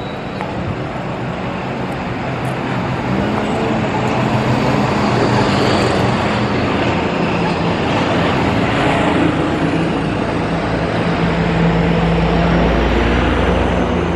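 Dump truck engine running close by, growing louder as it approaches, with a deep rumble near the end as it draws level.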